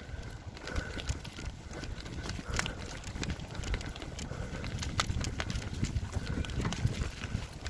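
Tyres rolling over a muddy, leaf-strewn dirt path: a steady low rumble with frequent sharp crackles and clicks as leaves and twigs are run over.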